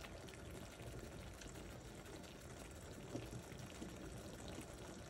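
Faint bubbling of thick tomato sauce simmering in a pan, with a few soft pops.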